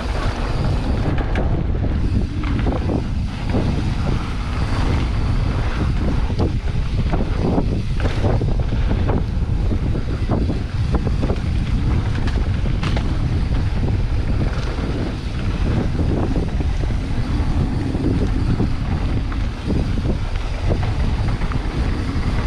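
Wind rushing over the camera microphone during a fast mountain-bike descent on a dirt trail, with frequent short knocks and rattles from the bike over rough ground.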